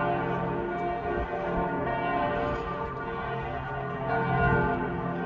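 Church bells pealing loudly, several bells ringing together so that their tones overlap and ring on without a break.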